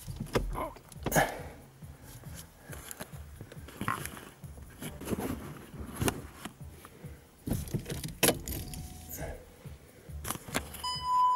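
Metal clinks and knocks of a wrench and terminal clamp as the car battery of a VW Golf 7 is being reconnected, then one short electronic beep near the end.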